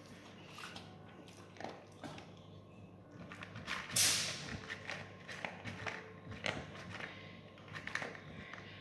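A chow chow crunching dry kibble from a foam tray, irregular crunches and clicks, with one louder short hiss about four seconds in.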